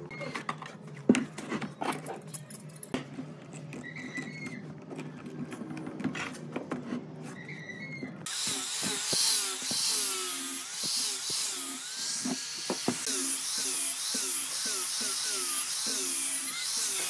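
Scattered clicks and knocks of a screw clamp and stacked wood strips being handled and tightened. About eight seconds in, this cuts off suddenly and an angle grinder fitted with a sanding disc runs, sanding the curved glued-up wood lamination with a loud hiss and a wavering whine.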